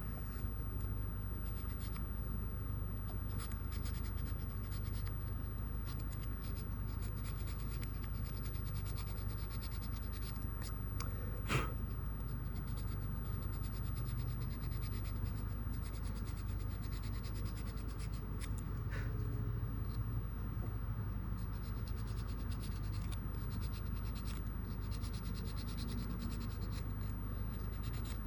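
Sandpaper rubbed by hand in repeated strokes on an aftermarket fuel filter, shaving it down so it will fit onto the fuel pump. A single sharp tap about halfway through, over a steady low hum.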